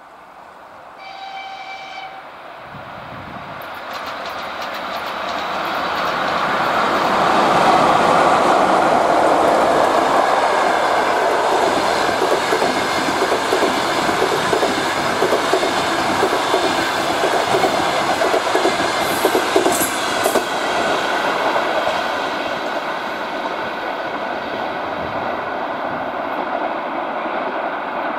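A short horn blast from a ChS7 electric locomotive about a second in, then the rumble of the passenger train growing loud as it passes, with the rhythmic clickety-clack of coach wheels over rail joints, easing off near the end as the train moves away.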